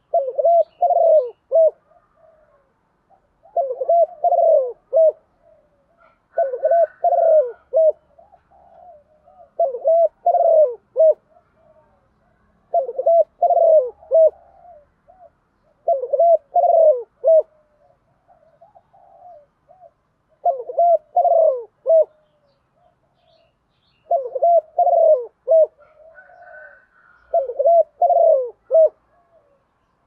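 Female spotted dove cooing: a short phrase of several soft coos, repeated nine times at intervals of three to four seconds. This is the call a female uses to rouse a male.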